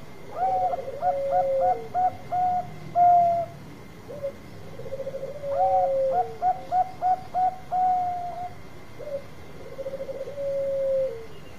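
Bangkok-strain zebra dove (perkutut) cooing. There are two full song phrases, each a low rolling trill followed by a run of short, higher, evenly spaced coos. Near the end comes a third phrase made of the rolling trill alone.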